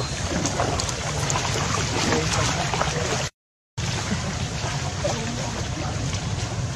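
Steady outdoor background noise with a low rumble and scattered faint clicks, cut off by a half-second of dead silence a little under halfway through.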